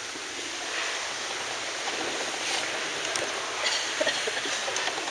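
Steady hiss of room noise with a few faint soft ticks and rustles.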